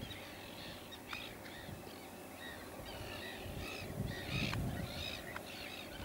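Many birds calling at once: short, clear, arching notes overlapping several times a second, with low gusts of wind on the microphone around the fourth and fifth seconds.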